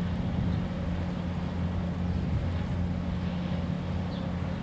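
Ship's engine running, a steady low drone with two even tones that doesn't change.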